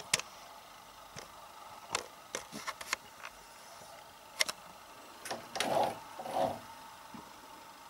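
Handling noise: scattered light clicks and knocks at uneven intervals, with a short rustle about six seconds in, over a faint steady room hiss.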